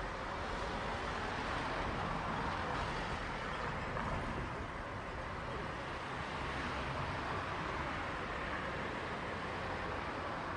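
Steady city street traffic ambience: a continuous, even hum of passing cars and motorbikes, with no single event standing out.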